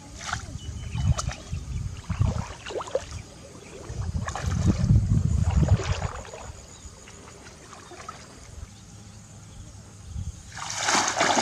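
Shallow water sloshing and splashing, with irregular low thumps and knocks and a louder splash near the end.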